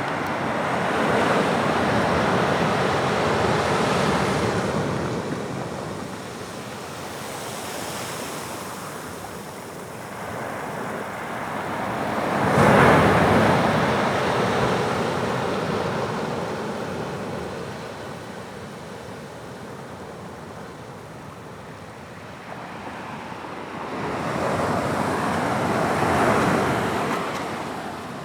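Atlantic waves breaking and washing up the shore in three surges, the loudest about halfway through.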